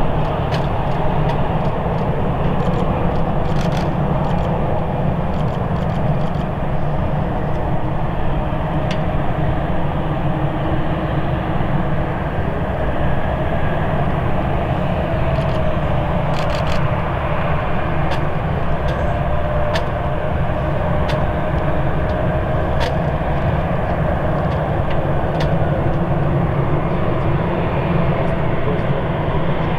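Airbus ACJ318's twin jet engines at taxi power, a steady rumble under a steady whine, as the jet taxis.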